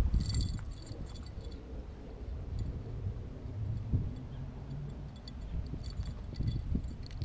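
Spinning reel being cranked, giving runs of fast metallic ticking: one just after the start and another in the last two seconds. Wind rumble on the microphone runs underneath.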